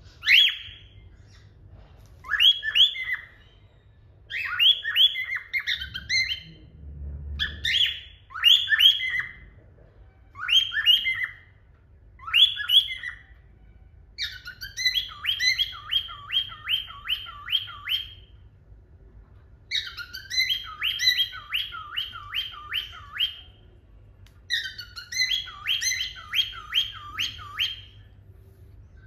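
Cockatiel singing: short warbled whistle phrases every couple of seconds, then from about halfway, longer runs of quick repeated chirps lasting a few seconds each.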